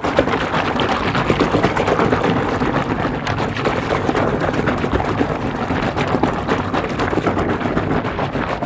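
A hand churning and sloshing soapy water in a plastic tub: continuous splashing, thick with small crackles from the foam.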